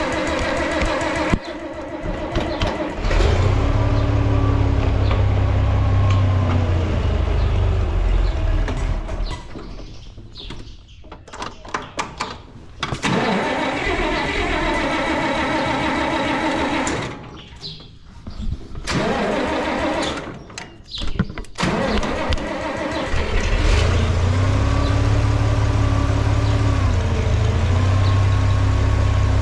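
International Harvester 460 tractor engine, cold after a month unused, starting and stumbling: it runs, dies away, and is brought back several times, with short near-quiet gaps, before settling into a steady run in the last few seconds.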